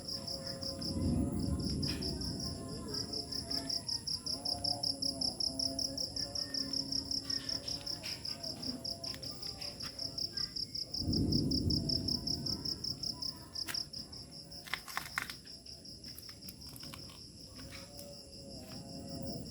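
Crickets chirping in a steady run of rapid, even pulses, with a constant higher insect trill above them. Low rumbles come about a second in and again about eleven seconds in.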